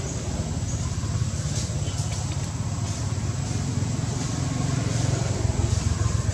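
Steady low rumble, with a thin steady high whine and a few faint ticks over it.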